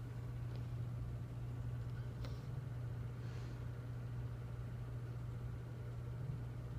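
Quiet room tone: a steady low hum, with a couple of faint soft ticks.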